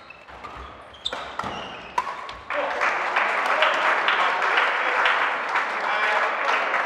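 Badminton rally on a sports-hall court: sharp racket hits on the shuttlecock and short shoe squeaks. About two and a half seconds in the rally ends and spectators break into loud applause and cheering that keeps going.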